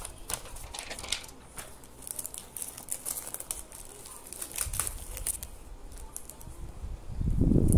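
Light crackling and small clicks of a clear plastic sheet of adhesive pearl stickers being handled and peeled, with dull low thumps of handling on the table about halfway and again, louder, near the end.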